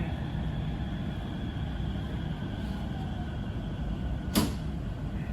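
Inside a metro train car: a steady low rumble with faint high whines from the train's equipment. One sharp click comes about four seconds in.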